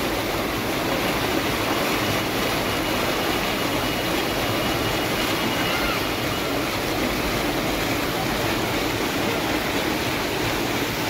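Fast spring-fed water rushing and churning along a stone garden channel, an even, unbroken rush.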